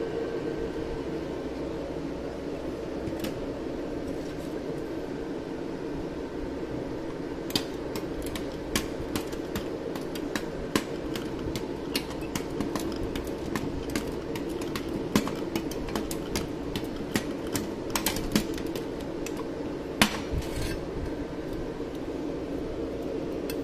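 SZ GCS16 roller-type resistance welder pulsing as its roller electrode is run along a thin steel sheet. It makes a quick, irregular series of sharp clicking snaps that starts about a third of the way in and stops a few seconds before the end, over a steady machine hum.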